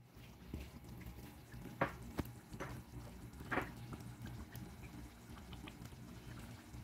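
Thick creamy beef stroganoff sauce simmering in a stainless steel pan, bubbling quietly with scattered soft pops. A few sharper pops come about two and three and a half seconds in.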